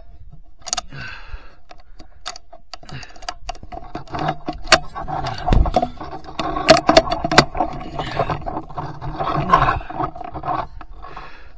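Handling noise from a rifle being moved onto a new target: irregular metallic clicks, knocks, scraping and rattling of the rifle and its gear, with a dull thump a little past the middle.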